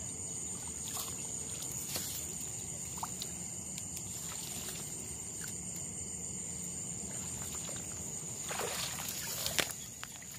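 Crickets chirping in a steady high, pulsing trill. Reed stems rustle as they are pushed aside, louder near the end, with one sharp snap.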